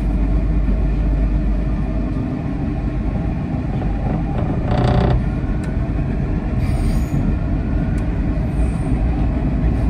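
An MTR metro train running on its rails, heard from inside the car as a steady low rumble. About halfway through, a short wheel squeal rises above it as the train takes a curve.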